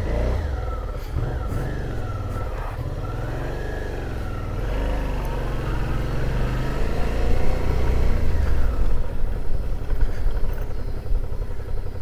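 Suzuki V-Strom 650's V-twin engine running under way on the road, getting louder over the second half as it pulls harder.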